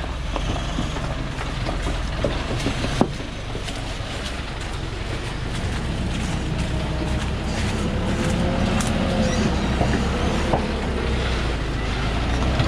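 Diesel engine of a Thaco Forland FC950 4WD truck loaded with about 18 tonnes of logs, running at low speed as the truck crawls over a rocky track, with a sharp crack about three seconds in. From about halfway the engine gets louder, with a faint whine rising and falling.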